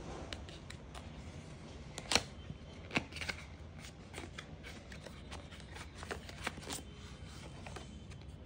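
Cardboard product box being opened by hand: flaps and inner card rustling and scraping, with scattered sharp clicks and taps, the sharpest about two and three seconds in.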